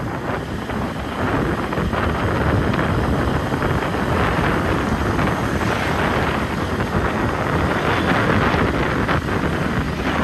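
Wind rushing over the microphone of a moving vehicle, with vehicle and road noise underneath. It grows a little louder about a second in, then holds steady.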